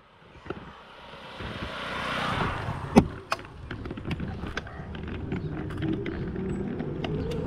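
Road noise of a moving vehicle heard from on board: a rushing noise that swells and fades over the first few seconds, a sharp knock about three seconds in, then a steady low rumble with frequent small rattles and clicks.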